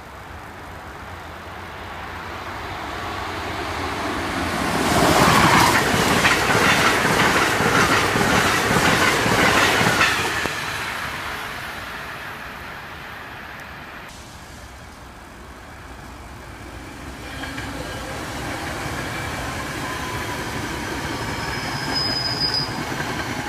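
An Amtrak electric train approaches and rushes past at speed: a rush of wheels and air that builds for about five seconds, stays loud for about five more, then fades. Later a SEPTA electric commuter train rolls by at lower speed, with faint whining tones from its wheels and motors over the rumble.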